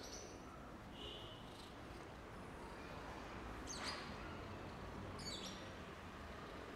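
Faint high-pitched bird chirps: about four short calls a couple of seconds apart, one sliding down in pitch, over low steady background noise.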